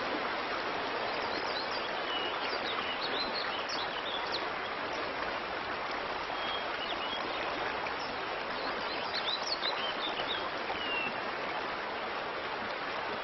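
A stream running steadily, with scattered short bird chirps over it.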